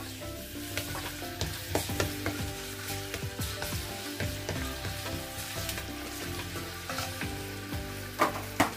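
Shredded garlic sizzling in olive oil in a small stainless steel saucepan, stirred with a plastic spoon that scrapes and clicks against the pan. There are a couple of louder knocks near the end.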